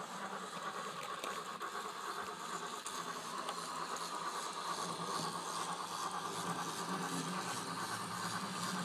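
A small model narrow-gauge steam locomotive running steadily along its track, giving an even mechanical hum with a faint rattle of wheels on rail.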